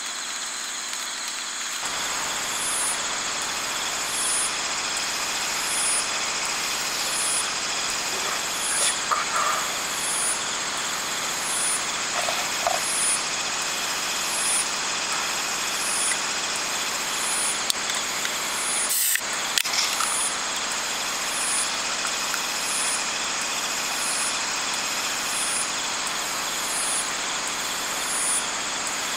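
Night insects chirping in a high, even pulse, about three chirps every two seconds, over a steady sizzling hiss from ajillo in a cast-iron skillet over a campfire. A single sharp click stands out about two-thirds of the way through.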